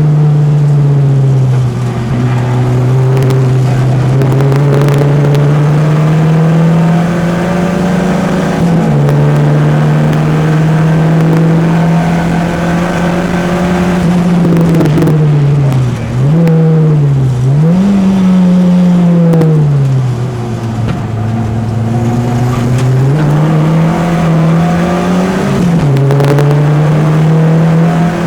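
Peugeot 205's four-cylinder engine driven hard on a race circuit. The revs climb steadily and drop sharply at each gear change, and dip and swoop through a slower section about two-thirds of the way through.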